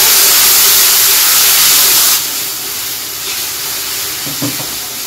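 Hot oil in an iron kadai sizzling loudly as a wet ingredient goes in, the water flashing off in the oil. About two seconds in the sizzle drops to a lower, fading hiss, with a few light knocks near the end.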